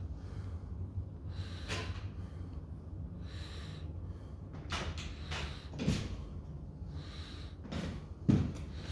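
A handful of short knocks and thuds over a steady low hum. The loudest is a sharp thump near the end.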